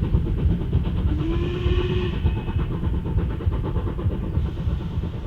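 Steam locomotive running with a heavy, continuous rumble, its whistle sounding once for about a second, a little past the first second.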